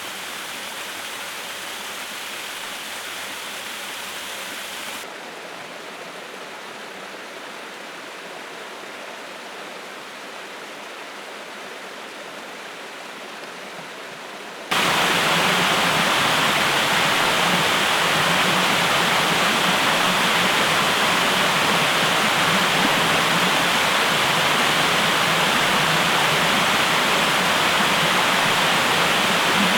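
Waterfall rushing steadily. The sound changes abruptly twice: about five seconds in it becomes quieter and duller, and about fifteen seconds in it becomes much louder and fuller.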